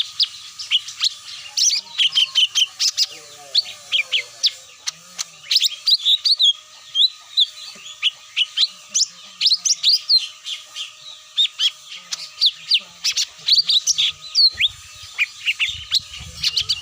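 Cucak mini birds calling in a lure recording: a dense run of quick, high chirps and twitters, several short notes a second throughout. A faint steady tone runs underneath.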